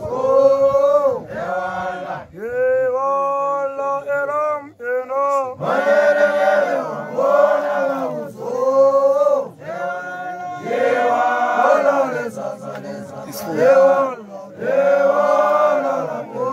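A group of voices chanting a song together in short repeated phrases, each one rising and falling in pitch.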